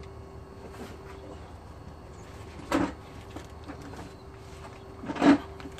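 Two brief knocks from handling parts or tools, the second one louder, about two and a half seconds apart, over a steady faint hum.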